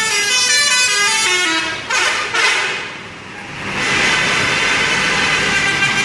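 Bus telolet horns, multi-tone air horns, playing a quick stepping melody for about two seconds. After a brief noisy break, a long chord of several held horn tones sounds from about four seconds in.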